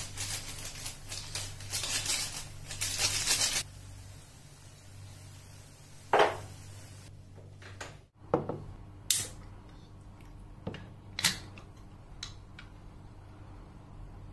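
Dried seaweed flakes crumbled and sprinkled over noodles in a frying pan: a dry, crackly rustle in short bursts over a low hum. About six seconds in comes one loud clank, like a glass lid set on the pan. After that there are a few sharp clicks and knocks of tableware being set down.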